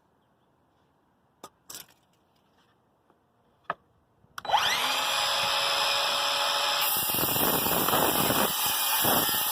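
A few sharp clicks, then the Craftsman 20V cordless miter saw starts about four seconds in, its motor whining up to speed, and runs loud and steady, cutting through wood.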